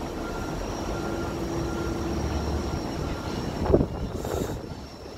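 Distant street noise with a light-rail tram running along the road below, a steady low hum for the first couple of seconds. A single sharp bump about three and a half seconds in is the loudest sound.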